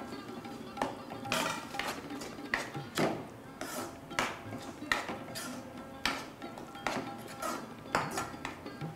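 A spatula scraping and knocking against a non-stick kadai as paneer cubes are stirred through a thick masala, in irregular strokes about once or twice a second.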